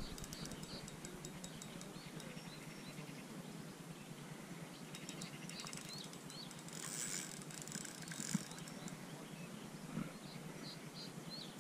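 Fishing reel being wound while playing a hooked fish on a float rod, giving runs of fast, even ratchet-like clicking near the start and again around five seconds in. A short hiss follows about seven seconds in.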